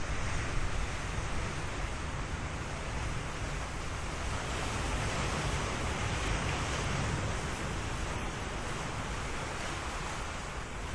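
Ocean surf washing in: a steady rush of breaking waves that swells to its loudest about halfway through and eases off near the end.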